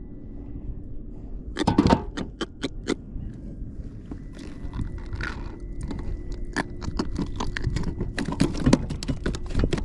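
Handling of a just-landed fish and tackle aboard a kayak: a run of irregular sharp clicks and knocks with some scraping, in two clusters, the first about a second and a half in and the second from about halfway.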